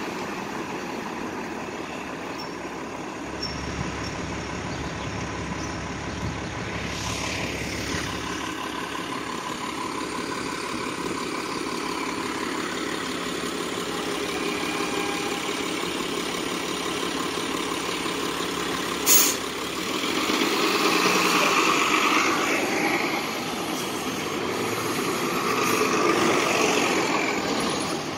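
City transit buses running in street traffic with a steady engine drone. About two-thirds of the way through comes one short, sharp air-brake hiss, followed by two louder swells of diesel engine noise as a bus pulls away.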